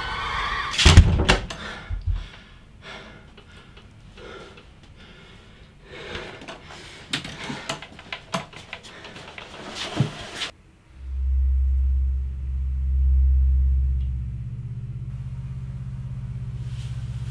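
Knocks and thuds of an old wooden chest being handled and set down in a small room, with a loud bang about a second in. About eleven seconds in these stop and a low, steady droning tone of the film's score takes over.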